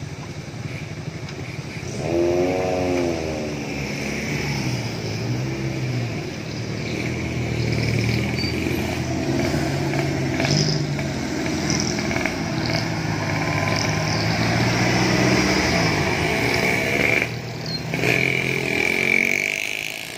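Motorcycle and off-road jeep engines running as they pass close by, with the engine pitch rising and falling several times as they rev and go past.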